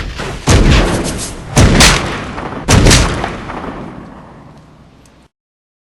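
Gunshot sound effects: the tail of one shot, then three heavy shots about a second apart, each with a long echoing decay. The last decay fades away and the sound cuts off abruptly after about five seconds.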